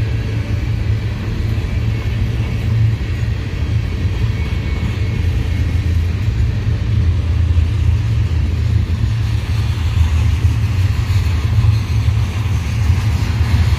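Mixed freight train cars rolling past, a steady low rumble of steel wheels on the rails.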